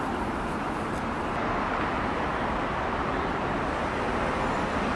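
Steady city street traffic noise, an even rush of passing road vehicles with no single event standing out.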